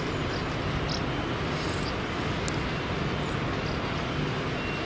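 A Class 66 diesel-electric locomotive, with its EMD two-stroke V12 engine, approaching at a distance while hauling a freight train of tank wagons: a steady low engine drone under an even outdoor rush.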